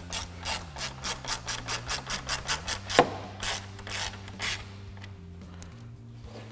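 Hand ratchet clicking quickly, about five clicks a second, as a T25 screw is driven down into the front grille. A sharper click comes about three seconds in, then a few slower clicks before it stops.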